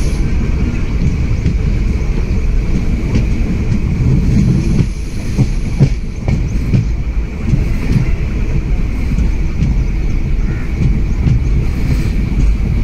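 Passenger train running at speed, heard from inside the coach: a loud, steady low rumble of wheels on the track, with a few sharper clicks and knocks around the middle.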